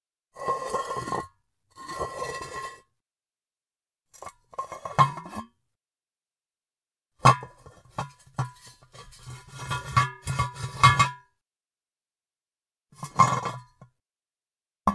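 Glazed ceramic cookie jar scraped and slid across a surface in separate strokes, its body ringing with a clear tone. Two one-second scrapes open, then a shorter one, then a busy run of clinks and knocks of ceramic on ceramic in the middle, and one more short scrape near the end.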